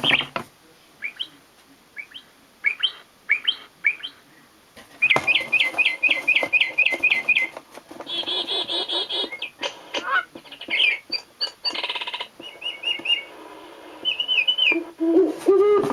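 National Audubon Society singing bird wall clock playing its recorded bird songs through its small speaker, several different species one after another: scattered chirps, then a run of rapid repeated notes, then trills. Near the end a low owl hoot begins.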